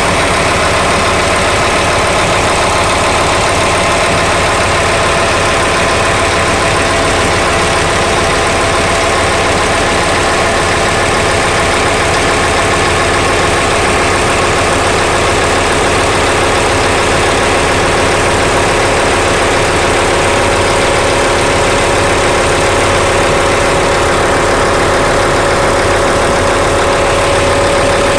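Engine idling steadily, with a steady tone running through it that grows a little stronger in the last several seconds.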